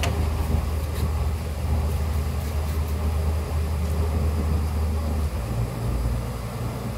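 A machine running with a steady low hum, which shifts to a slightly higher pitch about five seconds in.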